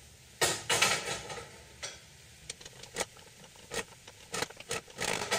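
Sliced mushrooms and onions being stirred with a wooden spoon in a hot skillet. There is a loud scraping burst about half a second in, then scattered short clicks and scrapes, with a denser run near the end.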